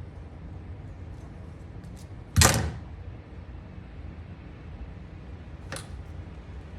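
A single loud, sharp knock about two and a half seconds in, then a fainter click near the end, over a steady low hum.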